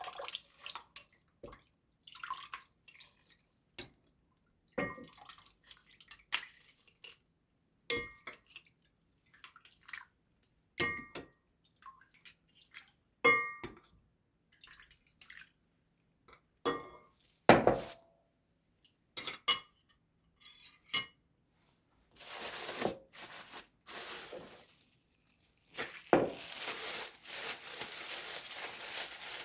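Kitchen dishes and containers clinking and clattering: many separate knocks, several with short ringing tones. From about two-thirds of the way in, a steady rushing hiss takes over.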